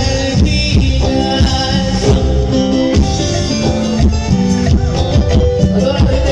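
Loud Latin dance music played over a sonidero sound system, with a steady beat.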